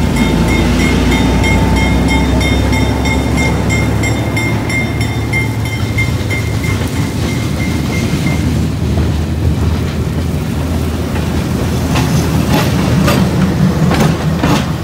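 Freight train of tank cars rolling slowly past over a street crossing, with the low rumble of vintage EMD switcher locomotive diesel engines. A high, pulsing ring runs through the first part and stops about eight seconds in. Near the end the rumble swells and wheels clack sharply over the rail joints as the trailing switcher passes.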